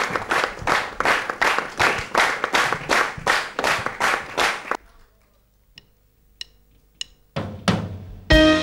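Studio audience clapping together in a steady beat, about three claps a second, that stops suddenly a little before halfway. A few faint clicks follow in the quiet, then keyboard music starts near the end.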